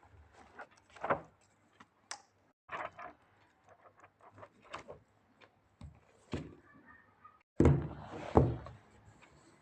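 Handling noise from unboxing a journal: scattered taps, clicks and rustles of packaging and the book, with a louder rustle and thump near the end.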